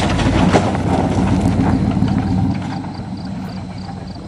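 Pickup truck engine idling steadily, with scattered clicks and knocks over the first two seconds. It fades after about two and a half seconds, while faint high beeps repeat about four times a second.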